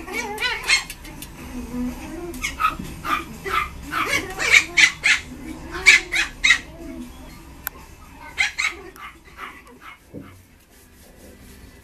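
Yorkshire terrier puppies yapping and barking in quick clusters of short, high calls as they play-fight, dying down about ten seconds in.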